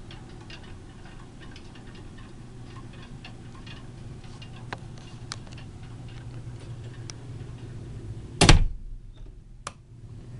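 Cabin fittings on a rolling cruise ship ticking and creaking irregularly in rough seas, over a steady low hum. About eight and a half seconds in comes one loud thump, with a sharp click a second later.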